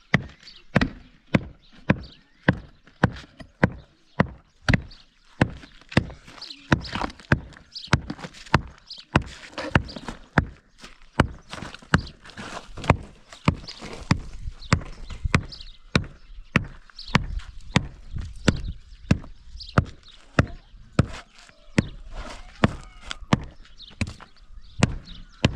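Steady hammering: sharp blows at an even pace of about two a second, each with a brief ring.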